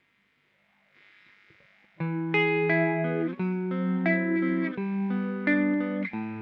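Electric guitar played through a Marshall RG-1 Regenerator modulation pedal. Faint hiss for about two seconds, then picked notes and chords begin suddenly, changing every half second to a second.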